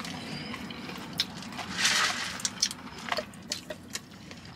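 Eating and food handling: soft clicks and rustles of fried chicken fingers, their box and a plastic sauce cup being handled, with a louder rustle about two seconds in.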